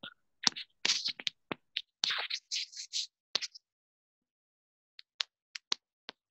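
Computer keyboard and mouse clicks: a quick run of keystrokes and taps for about three and a half seconds, a pause, then a few separate sharp clicks near the end.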